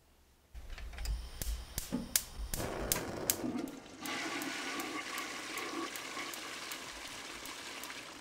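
Running water: a rush that starts about half a second in with scattered clicks and a low rumble, then settles into a steady, even rush from about halfway through.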